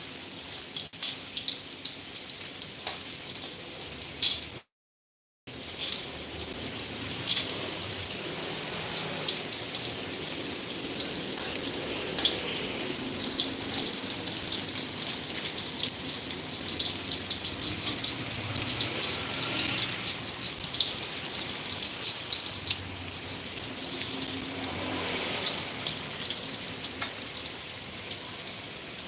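Chicken meatballs frying in hot oil: a steady hiss thick with fine crackles. The sound cuts out for about half a second near five seconds in.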